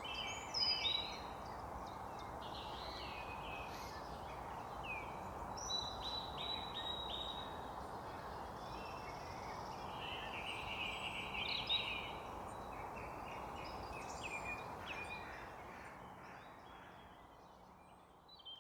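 Several songbirds singing: chirps, repeated notes and rapid trills, over a steady background hiss. The sound fades down near the end.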